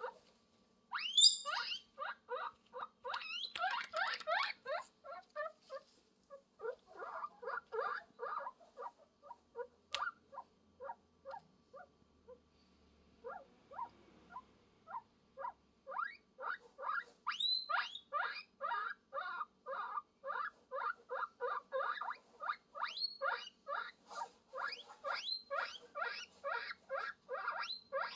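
Guinea pig squeaking in a long run of short, rising notes, about three a second. Louder, higher squeals come about a second in and again partway through, with a brief lull in the middle.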